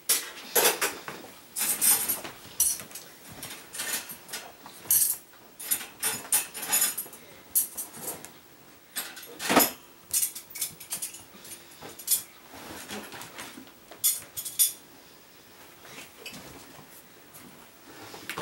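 Two kittens' claws and paws skittering and scrabbling on a hard floor as they pounce and scramble, in irregular quick runs of clicks and scrapes.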